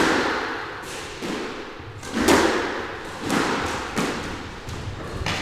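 Squash ball being struck by rackets and hitting the court walls during a rally: about seven sharp hits, each ringing out in the echoing court, the loudest about two seconds in.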